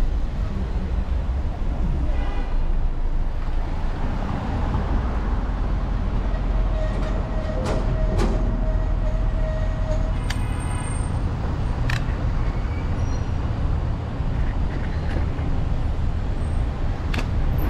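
Steady rumble of wind over a bike-mounted camera's microphone and street traffic while cycling along a city bike lane beside queued cars. A steady mid-pitched squeal is heard for a few seconds around the middle, and a few sharp clicks come now and then.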